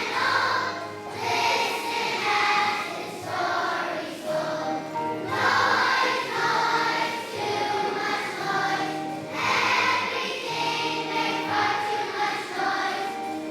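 Young children's choir singing a song together over a musical accompaniment of steady held notes.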